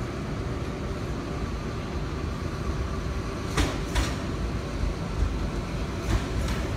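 V-set double-deck electric intercity train arriving slowly at the platform: a steady low rumble, with two sharp clicks about halfway through as the wheels cross rail joints.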